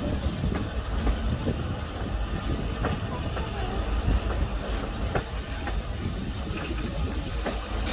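Passenger train running along the rails: a steady low rumble with a scattering of sharp clicks from the wheels.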